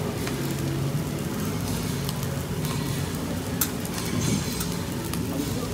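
Fried rice sizzling on a hot hibachi griddle, with a few short clicks and scrapes of the metal spatula on the steel plate.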